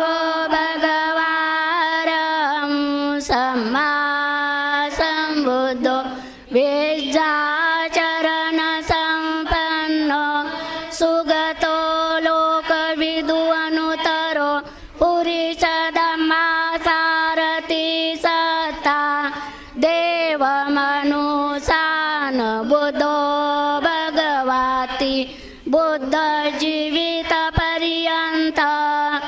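Women's voices chanting a Buddhist devotional verse together in a sung melody. They hold long notes in phrases with short pauses for breath between them.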